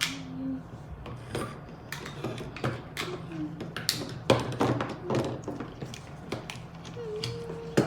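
Small hard plastic toy parts clicking and tapping at an uneven pace as they are handled and fitted together, with a sharper click about four seconds in and another near the end.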